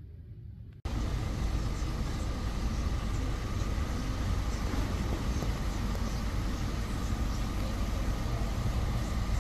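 Steady loud rumble with a faint steady hum through it, cutting in abruptly about a second in after a quiet room tone.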